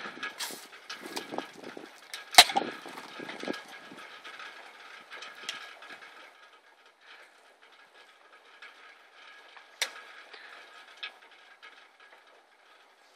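A beer can is handled and its tab cracked open with one sharp snap about two seconds in, among small clicks and rustles of handling. After that it is mostly quiet while he drinks, with one more click later.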